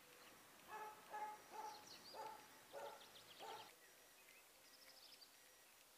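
A dog barking six times in a quick, even series, the barks sounding faint and distant, with faint bird chirps.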